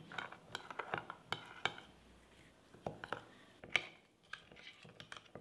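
Metal spoon stirring rice flour and water into a thick paste in a small ceramic bowl, clinking and scraping against the bowl in irregular light clicks.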